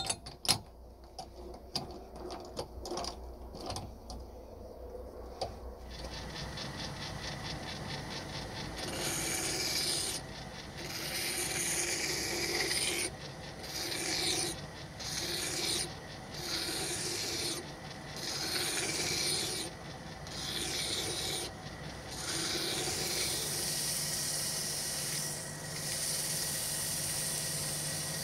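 A few light clicks and knocks, then from about six seconds in a small motor running steadily. Over it, a part of the old hand drill is rasped against a powered abrasive in strokes about every second and a half, becoming continuous near the end.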